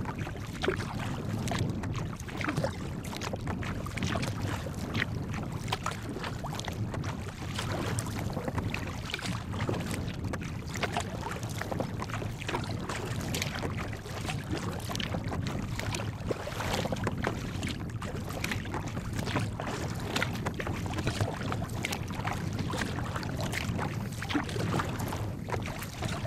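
Choppy water slapping and splashing irregularly against the bow of a sea kayak under way, over a steady low rumble of wind on the microphone.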